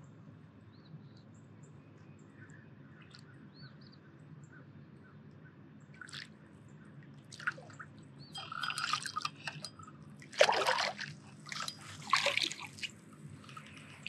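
Hooked grass carp splashing and thrashing at the water's surface as it is brought in on the line. The irregular splashes start about six seconds in and are loudest about two-thirds of the way through. Faint bird chirps come before them.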